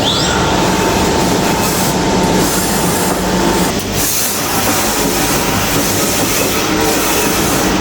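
GREBO TMC700 CNC tapping machining center running on a test: a loud, steady mechanical noise with a held whine that stops a little under four seconds in, and a short rising whine at the very start.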